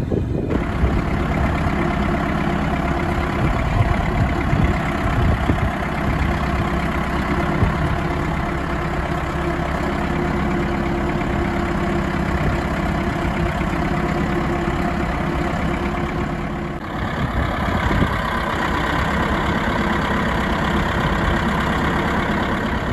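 Caterpillar D5H LGP crawler dozer's diesel engine idling steadily. Past the middle the sound briefly dips, then comes back a little brighter and fuller.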